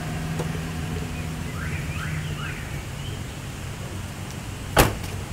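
Car engine idling with a steady low hum, then a car door shutting with a single sharp bang near the end.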